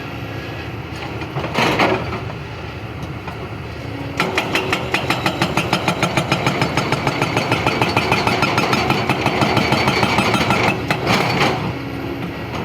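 Excavator diesel engine running steadily. From about four seconds in, a fast, even run of metallic knocks, about six a second, lasts around seven seconds and then stops.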